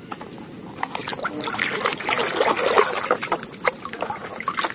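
Muddy water sloshing and splashing in a plastic tub as toys are swished through it to wash them. It picks up about a second in, with many irregular splashes.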